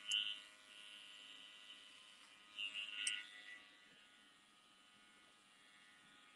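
Cordless hair clipper running with a faint steady buzz, giving two short bursts as it cuts hair over a comb, about the start and around three seconds in.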